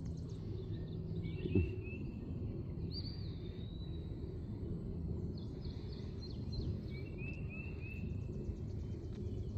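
Open-air pasture ambience: a steady low background noise with faint birdsong over it, two groups of short chirps and one longer whistled note about three seconds in. A single soft thump about a second and a half in.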